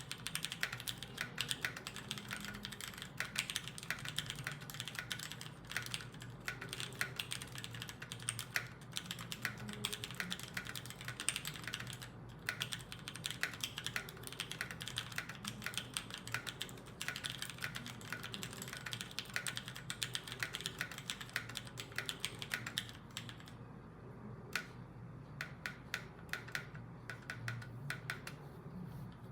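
Typing on a UTD 356 mini mechanical keyboard with Cherry MX Vintage Clear tactile switches and DCS-profile keycaps: a fast, continuous run of keystroke clacks that thins to slower, scattered keystrokes about three-quarters of the way through.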